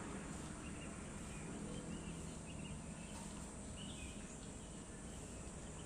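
Steady outdoor background noise, a low hum and hiss, with faint scattered high chirps.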